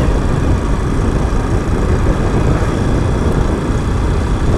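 X-torque 250 motorcycle riding steadily along a road, its engine running under a dense, steady rumble of wind noise on the on-board camera microphone.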